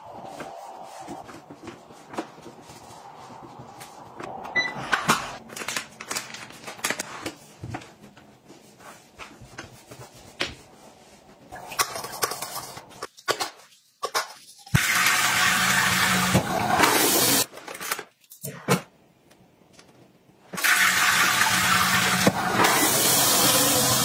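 Wiping, brush scrubbing and small plastic knocks on a smart toilet, then the smart toilet flushing twice, each a loud rush of water lasting about three seconds, the second running on into the end.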